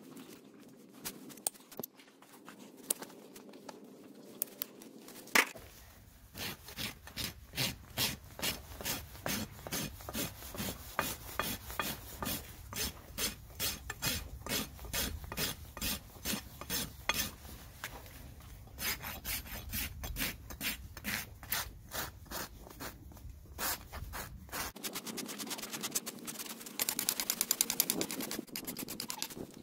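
Steel hoof rasp filing a horse's hoof, in regular back-and-forth strokes at about one and a half a second, quickening into short rapid strokes near the end. Before the rasping starts there are a few sharp clicks, the loudest about five seconds in.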